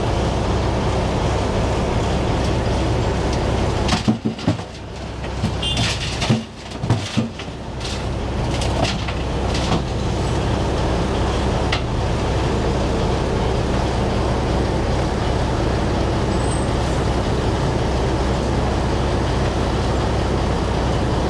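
Heavy diesel machinery running as a steady low drone: the dump truck and the asphalt grinder loading it. Between about four and eight seconds in the drone dips, and a few sharp knocks and clicks break through.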